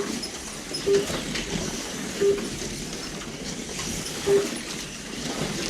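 Model race cars running around the track with a steady rumbling hum, and four short electronic beeps about a second or two apart, typical of a race lap counter registering cars crossing the line.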